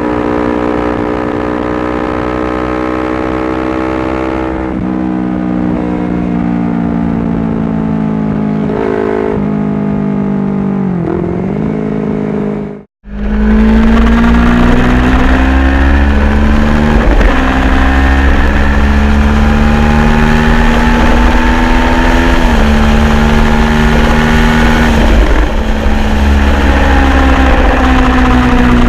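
Honda CBR250RR motorcycle engine running under way, its pitch easing and dropping several times as the throttle is rolled off or gears change. The sound cuts out briefly about halfway through, then comes back louder with a heavier low rumble.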